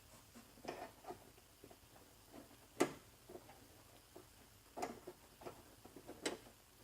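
Scattered light clicks and knocks of hands working a door handle's linkage and clips inside a car door, with one sharper click about three seconds in.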